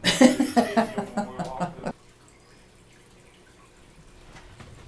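A voice sounds loudly for about two seconds without forming words and is cut off abruptly. After that only quiet room tone is left.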